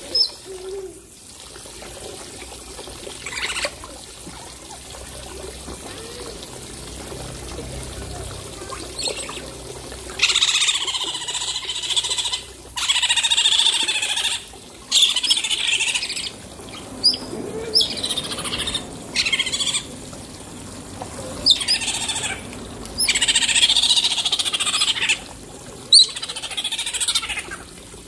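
Otters chirping and squealing in repeated high-pitched bursts of a second or two, coming thick and loud from about ten seconds in, with water splashing as they swim and play in a shallow tub.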